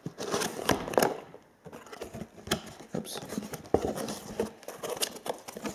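Cardboard packaging handled: a box flap pulled open and a cardboard lid lifted off, a run of scattered scrapes, taps and rubbing.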